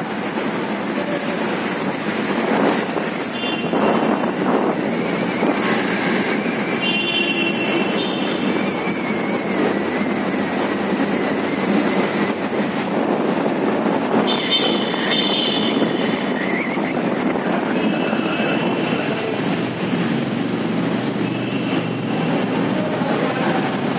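Steady vehicle and road noise while travelling through a concrete road underpass, with a few brief high-pitched tones here and there.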